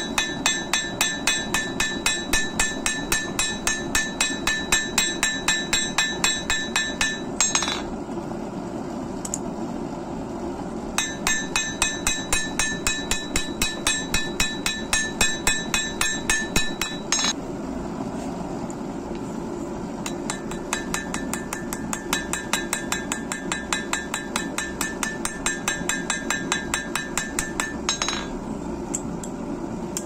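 Hand hammer beating a steel folding-knife blade on an anvil in fast, even blows, about four a second, each with a bright metallic ring. The blows come in three runs with short pauses between them, over a steady low hum.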